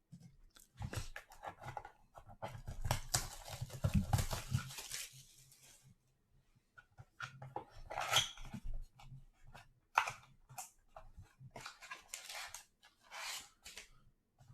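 Sealed box of trading cards being unwrapped and opened: a few seconds of steady tearing and crinkling of plastic wrap, then scattered rustles and scrapes of packaging.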